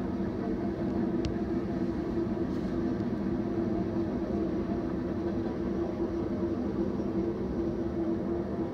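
BNSF freight train passing out of sight: a steady low rumble with a constant hum.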